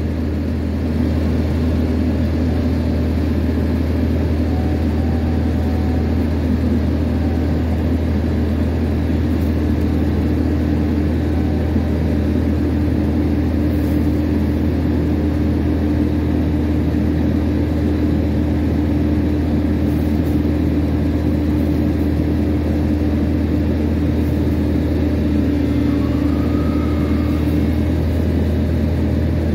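Diesel engine running steadily at a constant speed, powering the hydraulic crane boom as it lowers a load on its hook, with a steady hum over the low engine note that fades out near the end.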